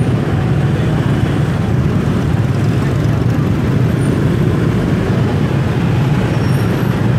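Dense motorbike and scooter traffic in a slow-moving jam: many small engines running together in a steady low drone.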